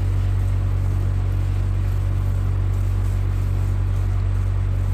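Skid steer engine running steadily, a constant low drone with no change in pitch or level.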